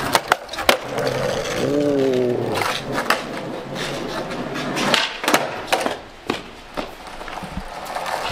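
Skateboard wheels rolling on concrete, with sharp clacks in the first second as the board drops down a low concrete step, front wheels first, then the back. A few more clacks come a few seconds later as the board is stepped off.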